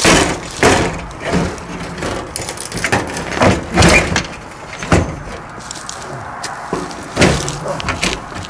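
A door shut with a loud bang at the start, followed by a run of knocks, rattles and scuffing steps as the door is handled and people move through the doorway.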